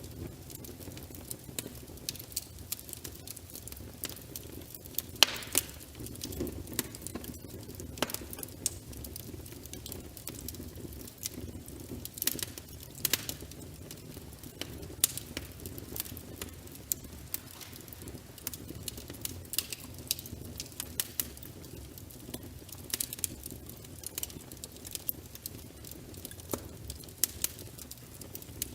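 Wood fire in a fireplace crackling, with irregular sharp pops and snaps over a steady low rumble of burning; a few pops are much louder than the rest.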